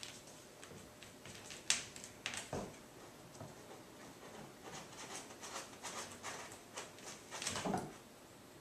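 Kittens climbing and scrambling on a padded metal exercise frame: scattered sharp knocks and clicks of the frame, two sharp ones about two seconds in, then a busier run of small knocks and scrabbling that is loudest near the end.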